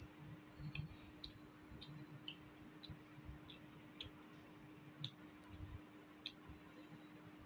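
Faint eating sounds: soft, wet mouth clicks while chewing, spaced irregularly about every half second to a second, with a faint steady low hum underneath.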